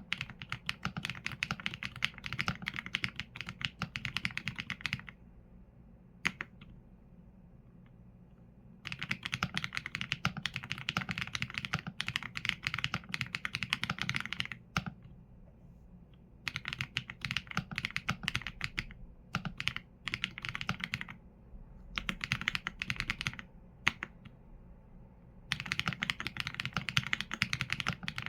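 Typing on a Qsenn A75 mechanical keyboard with Leobog Graywood V4 linear switches and PBT keycaps. Fast runs of key clacks come in bursts of a few seconds, with short pauses between them, at about 5 s, 15 s and 24 s.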